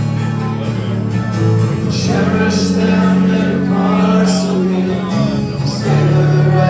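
Live concert music: strummed acoustic guitar and sustained band chords, with a man singing a slow, drawn-out line midway through. The sound is heard from the audience in a large hall.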